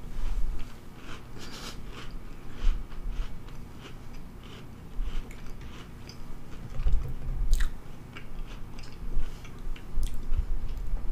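A person chewing a bite of baked Pillsbury Cinnamon Toast Crunch cookie close to the microphone: irregular crunchy chews and clicks, heavier about seven seconds in and again near the end.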